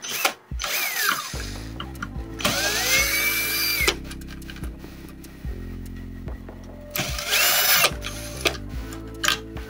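Cordless drill-driver running in short bursts, three times, its motor whine rising in pitch as it spins up, as it backs screws out of a laser printer's fuser unit. Background music comes in about a second in.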